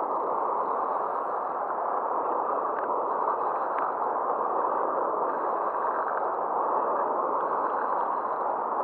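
Steady rushing of turbulent river water pouring out below a weir, an even wash of noise, with a couple of faint ticks a few seconds in.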